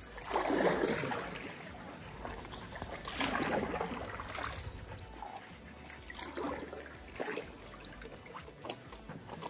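Stand-up paddleboard paddle stroking through pool water: three swishing strokes about three seconds apart.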